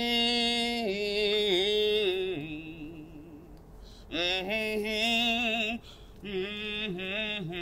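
A man singing wordless, drawn-out notes with vibrato in a low tenor range, in about four phrases with short breaks between them; the second phrase sits lower than the others.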